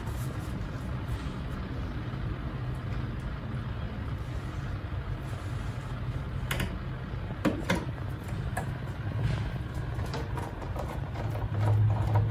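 A set screw being refitted into the blower mounting of an air conditioner: a few sharp metallic clicks of parts being handled over a steady low hum. Near the end a louder steady low hum starts.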